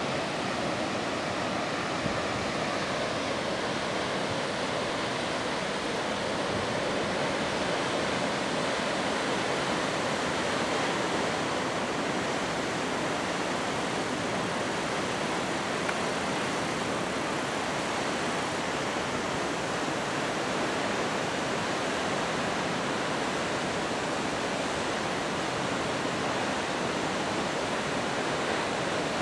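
Shomyo Falls, a waterfall with a 350 m drop, sending down a steady, unbroken rush of falling water.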